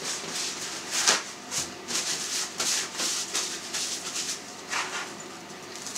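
Paper kitchen towel rustling in several short scrubbing strokes as greasy hands are wiped on it.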